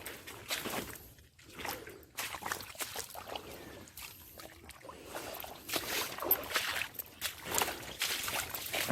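Footsteps sloshing through shallow swamp water and mud: uneven splashing steps, one every second or so.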